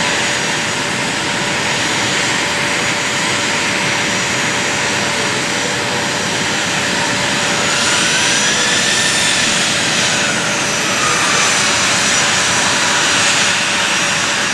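Steady jet noise of A-10 Thunderbolt II attack jets' twin General Electric TF34 turbofan engines running up close by. About halfway through, a whine rises and falls once over the roar.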